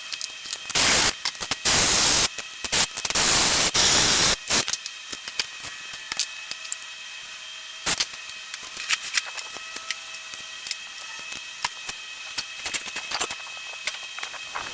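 Several bursts of loud hissing in the first few seconds, the longest about a second and a half, then scattered light clicks and taps during engine teardown work.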